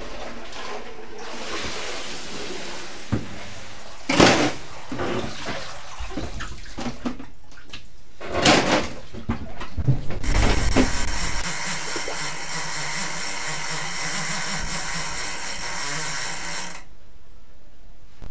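Water sloshing and splashing in an ice-fishing hole as floating ice chunks are scooped out with a bucket, with two louder splashes. Later a steady rushing hiss runs for several seconds and cuts off suddenly.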